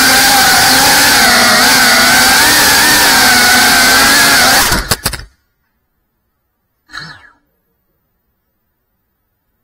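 Motors and propellers of a GEPRC CineLog35 FPV cinewhoop drone whining loudly, the pitch wavering as the throttle changes. About five seconds in there are a few clicks and the whine cuts off as the drone comes to rest on the floor, followed about two seconds later by one short knock.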